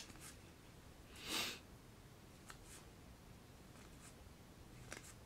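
Cards being handled: one soft swish of a card sliding across the deck or table a little over a second in, then a few faint light clicks.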